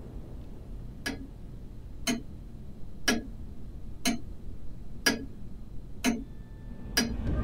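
London Clock Co. quartz mantel clock ticking, one sharp tick a second, seven ticks in all, over a faint low hum.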